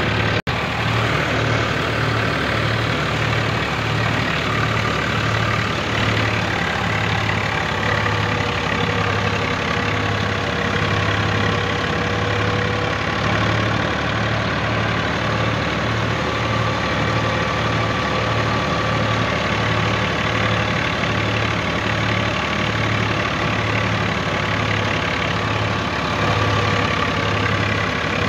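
Swaraj tractor's diesel engine running at a steady throttle while driving, with an even, regular throb.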